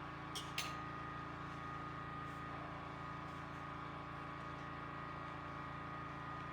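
Off-grid power generator running steadily in the background, a constant hum with a high steady tone. Two light clicks about half a second in.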